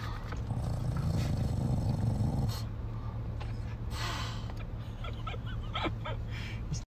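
English bulldog making low throaty vocal sounds, loudest from about half a second in to two and a half seconds, with a few short noisy breaths later. A steady low hum of the car cabin runs underneath.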